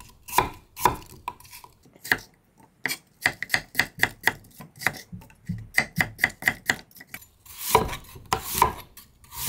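Kitchen knife chopping an unpeeled apple into bite-sized pieces on a cutting board: a run of sharp strokes, about three to four a second in the middle, then two longer, noisier strokes near the end.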